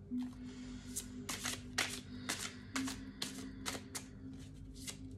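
An Angel Tarot card deck being shuffled by hand: a string of irregular card flicks and slaps, about two to three a second, over faint background music.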